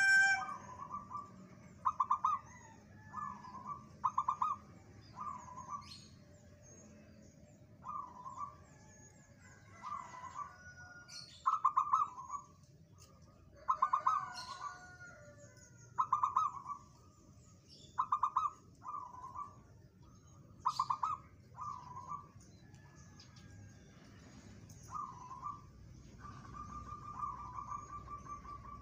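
Caged zebra dove (perkutut) cooing: short trilled notes repeated every second or two. Small birds chirp faintly in the background.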